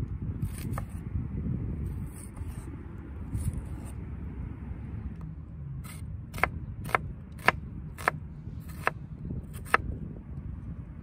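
A steady low rumble, with a run of about six sharp taps, roughly half a second to a second apart, starting about six seconds in.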